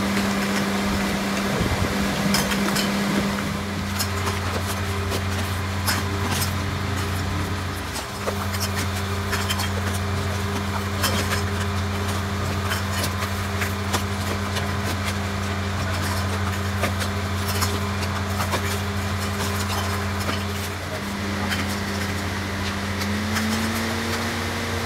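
Steady electric machine hum that drops out briefly twice, under frequent small clicks and crackles from cardboard filter boxes and plastic packing being handled.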